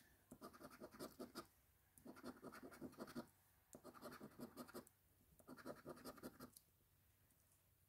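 A coin scraping the silver coating off a scratch-off lottery ticket: four faint spells of quick scratching strokes, each about a second long, with short pauses between as each number spot is uncovered.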